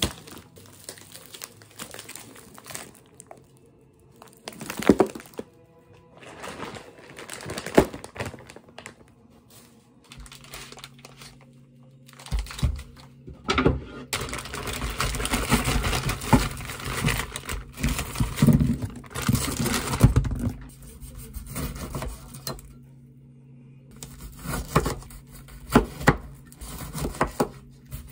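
Background music over the crinkle and thunk of plastic-wrapped grocery packs being handled, then near the end a knife cutting through passion fruit on a wooden cutting board.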